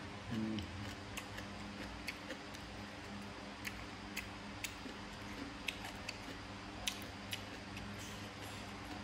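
A person chewing food close to the microphone: irregular sharp, crisp clicks of mouth and food sounds, with a short low hum near the start.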